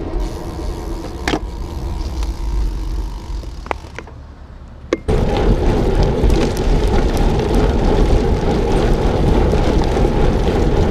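Wind rush and tyre noise from a road bicycle being ridden, picked up by a handlebar-mounted camera, with a few sharp clicks in the first seconds. It drops away briefly about four seconds in, then comes back louder and denser from about five seconds in.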